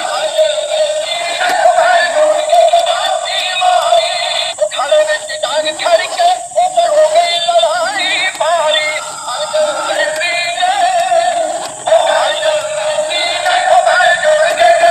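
Background music: a song with a sung voice, sounding thin, with no bass.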